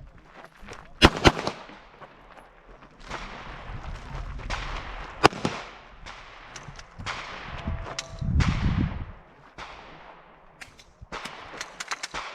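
Gunshots from handguns or pistol-calibre carbines at a practical shooting range, each followed by a short echo. Two loud shots come in quick succession about a second in and another about five seconds in, with many fainter shots scattered between them. A low rumble comes about two-thirds of the way through.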